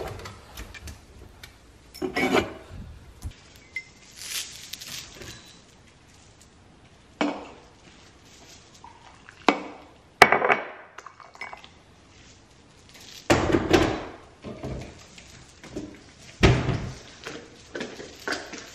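Kitchen handling sounds: a cabinet door opening, then a mug clinking and knocking on the counter in a series of separate sharp strikes, with hot water poured from an electric kettle into the mug about halfway through.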